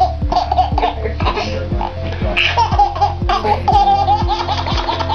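A baby laughing in short, repeated bursts over background music with a steady beat.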